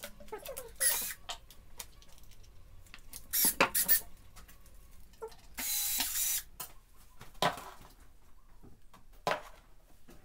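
Short knocks and scrapes of wooden cabinet parts being handled on a workbench, with a brief run of a cordless drill driving a screw about six seconds in.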